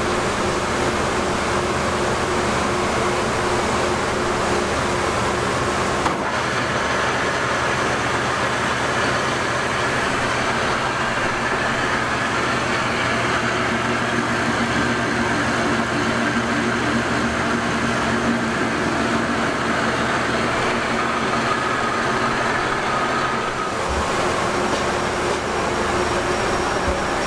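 Steady machine-shop noise: an enclosed industrial lathe machining crankshafts, with cutting coolant spraying inside its guard, over the constant hum of other machinery.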